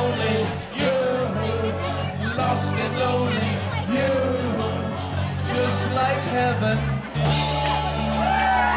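Live rock band with a singer, electric guitars, bass and drums, playing a song. About seven seconds in, the bass slides up and the band rings out on a held closing chord as the song ends.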